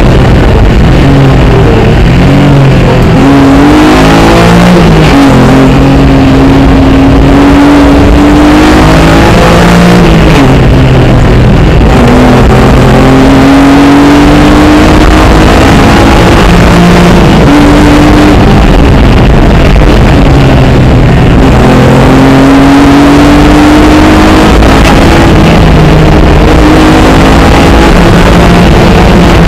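Rally car engine at hard throttle, heard from inside the cabin: the pitch climbs as it revs up through each gear, then drops back at every upshift, again and again, over steady road and tyre noise.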